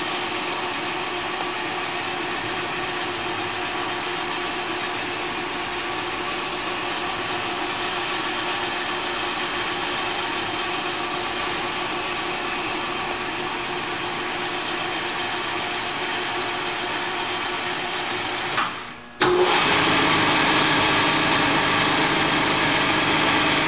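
Hardinge HLV lathe running with no load, a steady machine whine made of many pitched tones from its 1.5 hp three-phase drive. About 19 seconds in it drops out for a moment and comes back noticeably louder.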